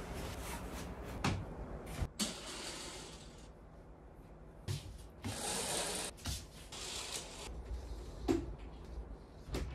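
Household handling noises: a few scattered knocks and clicks, with two short rustling swishes.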